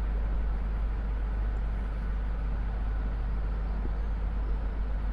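Steady low rumble with an even hiss over it, unchanging throughout: background noise.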